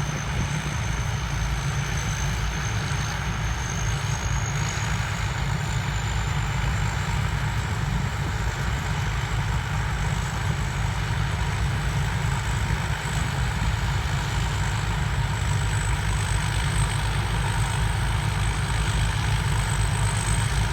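Rice combine harvester's diesel engine running steadily under load, with a thin high turbocharger whistle that climbs slowly in pitch over the first several seconds and then holds.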